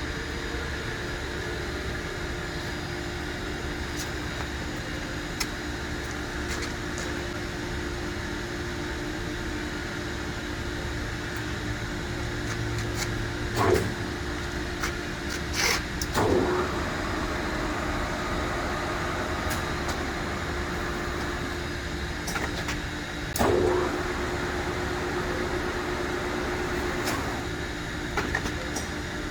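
Acra 2290 engine lathe running, a steady mechanical hum with a held tone, broken by a few short clunks.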